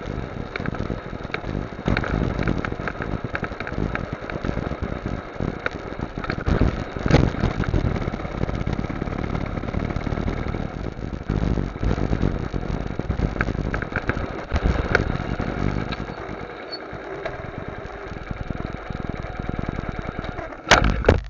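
Motorcycle engine running at low speed as the bike slows to a stop, heard through a camera on the bike with steady road and wind rumble. The engine rumble thins out in the last few seconds, and a couple of sharp knocks sound just before the end.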